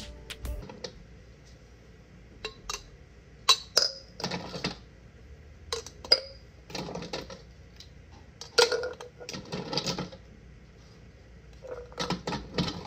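Large ice spheres clinking and rolling against a glass tumbler as they are put into it: a few sharp glassy clinks, then several short rattling scrapes.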